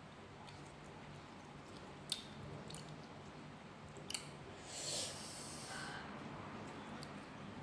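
A person chewing a mouthful of mango salad, with two sharp clicks and a short hiss about five seconds in.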